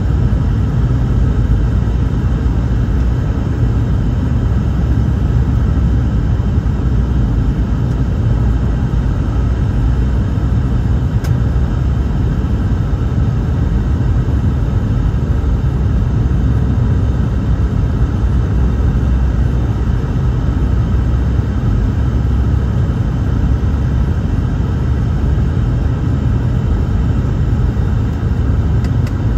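Steady jet airliner cabin noise on approach to landing: an even low rumble of engines and rushing air with a faint steady hum over it.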